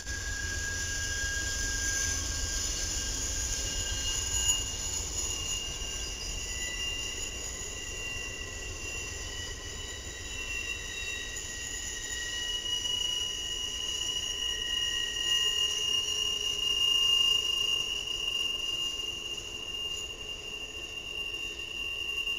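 Train wheels squealing as railroad cars roll past: several steady high-pitched squeals that shift in pitch and overlap, over a low rumble.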